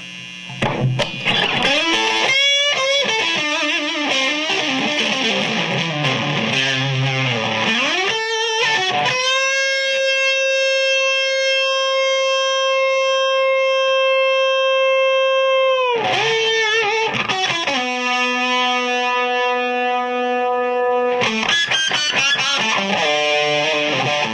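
Distorted electric guitar through a fully cranked Victoria VIC105 EL84 tube amp on its 5-watt setting with the boost all the way up: fast licks, then one note held for about six seconds with no decay, then another held note. The sustain shows how far the cranked amp is driven; the note could be held as long as wanted.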